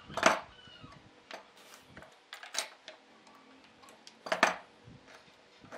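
Metal C-clamps being taken off a glued bent wood lamination and set down on the wooden board: a few separate clanks and knocks, the loudest just after the start and again about four and a half seconds in, with lighter clicks between.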